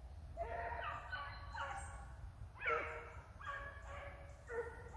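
A pack of petits bassets griffons vendéens giving tongue while running a rabbit: several hound voices baying over one another in repeated bursts, the cry of the pack on the scent.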